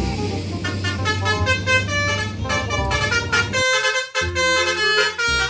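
A bus's Basuri telolet horn playing a quick tune of short, changing notes over a low engine hum.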